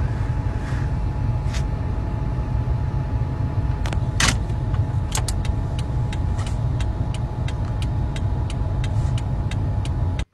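Car engine running with a steady low rumble, heard from inside the cabin. A faint steady tone sits over it, and from about halfway through there is a run of quick, evenly spaced clicks, about three a second.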